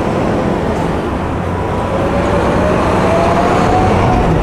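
A large motor vehicle passing close by, a heavy rumble with a motor whine that rises slowly in pitch as it speeds up.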